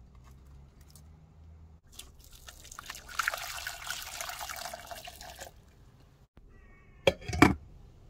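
Water poured from a measuring jug into a stainless steel saucepan of fir buds, a steady splashing pour for about three seconds. Near the end come two sharp metal knocks as the lid goes on the pan.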